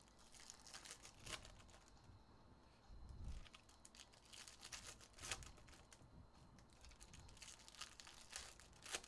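Foil wrapper of a Topps Chrome UEFA jumbo trading-card pack crinkling faintly as it is handled and opened, with sharper crackles about a second in, around five seconds in, and near the end.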